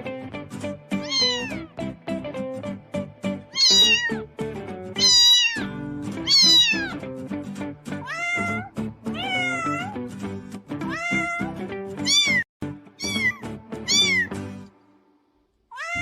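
Domestic cats meowing over background music, a dozen or so separate meows roughly a second apart, each rising and then falling in pitch. The meows and music stop near the end.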